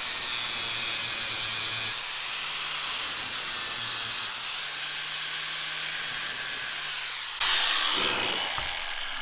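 Electric angle grinder with an abrasive disc grinding the metal of a Wilton bench vise, its motor whine wavering in pitch under load. About seven seconds in, it comes off the work and winds down with a steadily falling whine.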